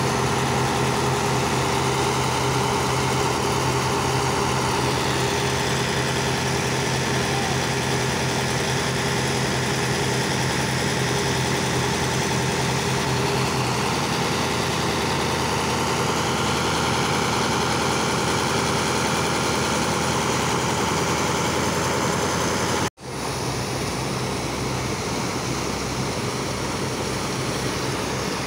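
A high-power Japanese-made engine running steadily, driving the pumps that jet water into a sand barge's hold and suck the sand slurry out, with rushing, splashing water over it. It cuts out for an instant about 23 seconds in and resumes slightly quieter.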